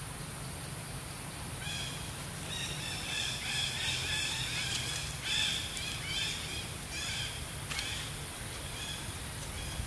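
Birds chirping: many short, high calls packed close together, starting about two seconds in and thinning out near the end, over a steady low outdoor rumble.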